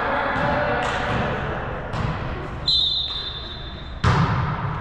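Volleyball rally in a gym hall, with sharp ball hits and voices in the background. A referee's whistle blows once, one steady high note lasting about a second, followed by a loud ball hit.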